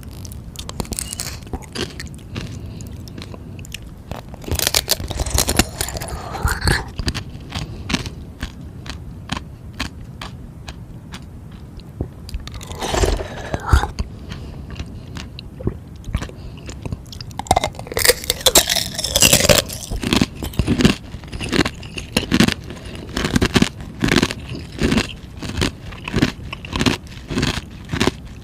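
Frozen ice being bitten and chewed close to the microphone, loud crunching and crackling. There are three heavier bursts of biting, and in the last part the chewing settles into steady strokes about once a second.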